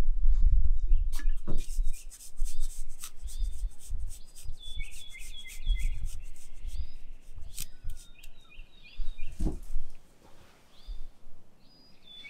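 Parmesan cheese being grated by hand over a plate of pasta: a dry rasping with many small clicks. A bird calls in several quick runs of short falling chirps, and there is a low rumble at the start.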